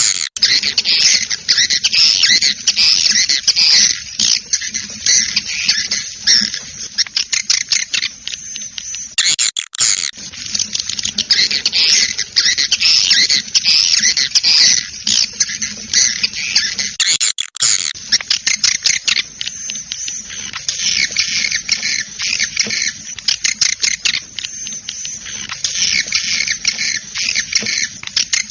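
Edible-nest swiftlet call recording: a loud, dense, continuous twittering of rapid high chirps, the kind of call track played to lure swiftlets into a nesting house. The chirping breaks off briefly about nine and seventeen seconds in.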